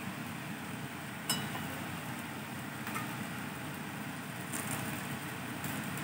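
A steel spoon spreading sweet filling on a cast-iron tawa: one sharp clink against the pan about a second in, then a few faint taps, over a steady low hum.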